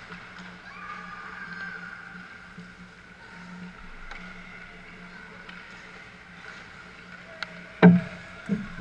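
Indoor ice rink during a youth hockey game: a steady low hum with faint, distant children's voices and skating. Near the end, two sudden thumps close by about half a second apart, the first one loud.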